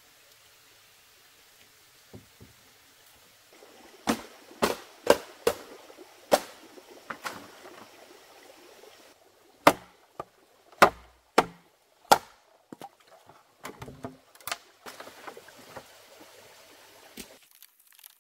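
Bamboo being chopped with a blade: sharp strikes in two runs of about half a dozen each, then lighter knocks.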